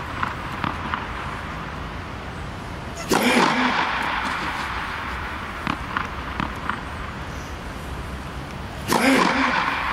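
A tennis ball bounced a few times on a hard court, then struck hard by the racket on a serve, twice: once about three seconds in and once near the end. A steady hiss runs underneath.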